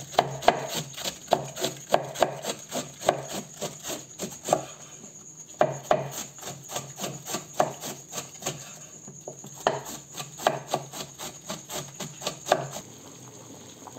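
Knife chopping cabbage finely on a cutting board: a steady run of quick chops, about three a second, with two brief pauses, stopping near the end.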